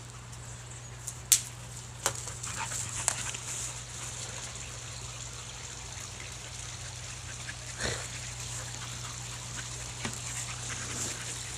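A dog moving about and making small sounds while playing in a grassy yard, with a few brief sharp clicks, the loudest about a second in, over a steady low hum.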